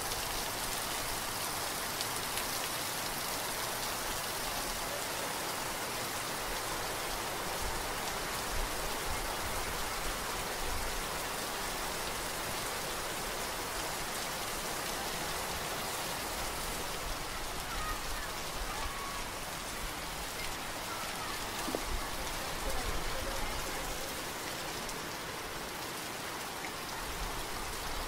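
Steady rain falling, a dense, even hiss of drops that hardly changes in loudness.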